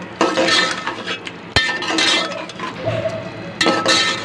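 Slotted steel spoon scraping and clinking against a metal cooking pot while stirring a thick chicken and potato masala. It comes in several bouts, with a sharp clink about a second and a half in.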